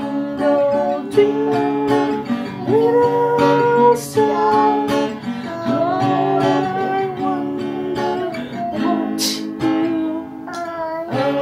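Acoustic guitar strummed in chords, with a voice singing a held, gliding melody along with it.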